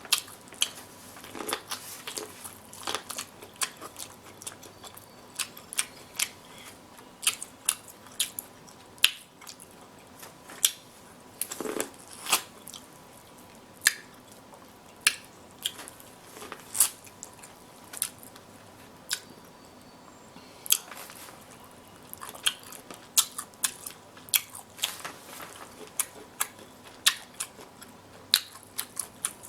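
Close-miked eating of king crab legs: chewing and smacking, with many short, sharp cracks and clicks at irregular intervals from crab shell being broken apart by hand.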